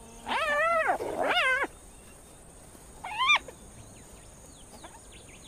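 Spotted hyenas calling: two arched, high cries back to back, then a shorter rising cry about three seconds in.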